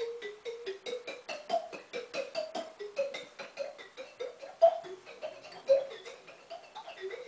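Udderbot, a glass bottle with a rubber glove stretched over its mouth, blown like a flute, playing a quick run of short clipped notes. The melody hops around the middle of its range, climbing a little higher in the middle of the run.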